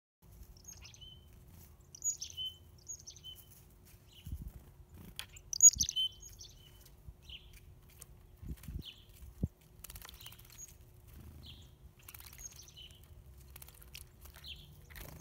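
Small songbirds giving short, high chirps repeated throughout. Brief splashing from a black-capped chickadee bathing in a shallow birdbath can be heard about two thirds of the way in.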